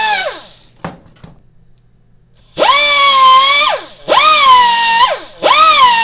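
Pneumatic die grinder whining as it grinds a weld bead flush on a steel yoke. The whine winds down at the start, a couple of clicks follow, then after a short pause it runs in three bursts, its pitch wavering and dipping as the bit bites into the metal and sagging as each burst ends.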